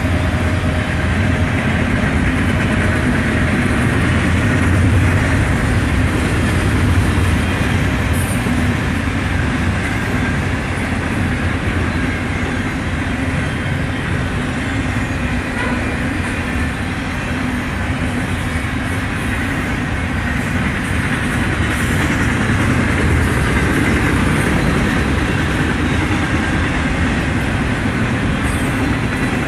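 Double-stack intermodal container cars of a freight train rolling past at speed, a loud, steady noise of wheels on rail.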